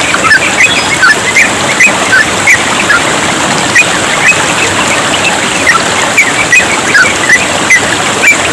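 Yellow-vented bulbuls chattering in quick, short chirps, several a second, over the steady rush of babbling water.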